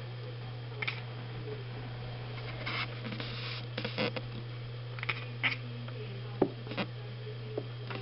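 A cat's short chirps and chattering, a few brief scattered bursts over a steady low hum, with one sharper knock about six seconds in.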